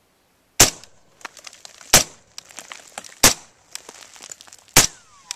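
Suppressed 5.56 rifle firing four single shots of 55-grain ammunition, spaced about a second and a half apart.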